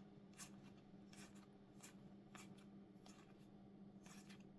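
Faint, soft flicks and rustles of trading cards being handled and slid one behind another, a dozen or so small irregular strokes, over a steady low hum.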